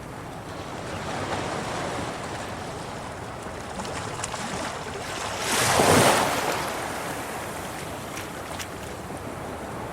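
Sea waves washing against rocks as the tide rises: a steady wash of surf, with one bigger wave surging in and breaking about halfway through, the loudest moment.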